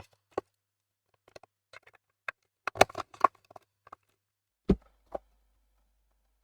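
Clicks and knocks of the power supply's board and plastic case being handled and fitted back together, with a quick run of louder clacks about three seconds in and a dull thump near five seconds.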